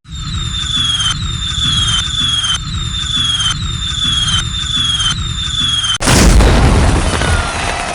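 Fireworks sound effect: a falling whistle repeated about every 0.8 s, then about six seconds in a loud burst with a long noisy rumble.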